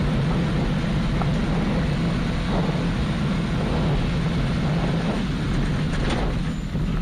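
Subaru Impreza rally car's flat-four engine running hard at a steady speed down a long straight, heard from inside the cabin, over a steady rush of gravel and wind noise. A few short knocks come near the end.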